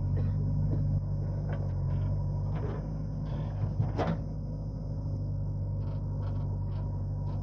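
Heavy diesel engine running steadily at a low, even speed, with a few short knocks, the clearest about four seconds in.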